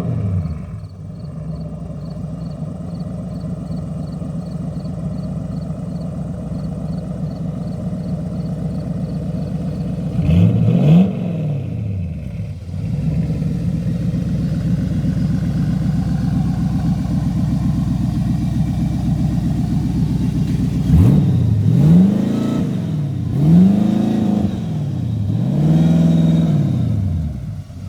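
Lamborghini Aventador's V12 engine running steadily, with one rev that rises and falls about ten seconds in and four more rising-and-falling revs in quick succession near the end.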